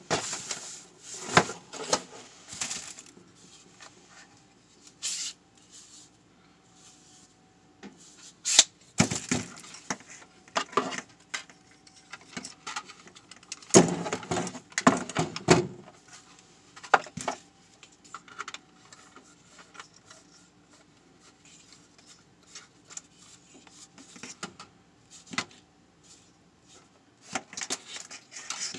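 Hands handling small plastic LED light panels, mini tripods and their packaging: irregular clicks, knocks and rustles, with a cluster of louder knocks in the middle, over a faint steady hum.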